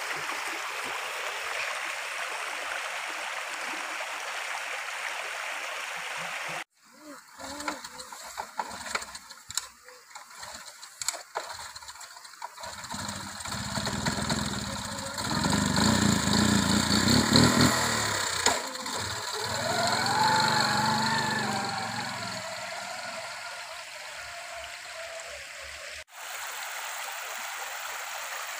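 Small step-through motorbike engine starting, then revving as it pulls away and fading out. Before it come a few seconds of steady stream noise, then scattered clicks and knocks.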